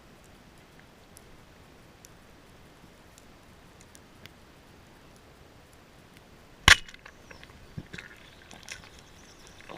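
A speargun fires underwater with a single sharp crack about two-thirds of the way through, followed by a few smaller clicks and a short hiss. Faint scattered ticking underwater is heard before the shot.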